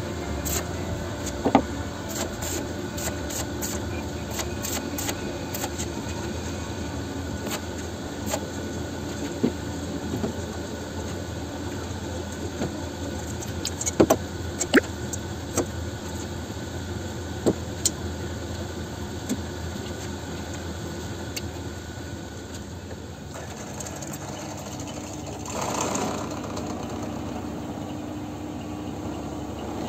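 Electric arc welding on thick hollow steel tube, a crackle of rapid ticking over a steady machine hum. This is followed by a few sharp, separate hammer knocks as slag is chipped off the weld. Near the end a drill press runs.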